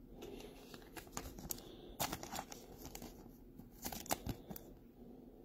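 Clear plastic trading-card packaging crinkling and rustling between the fingers, with scattered light clicks.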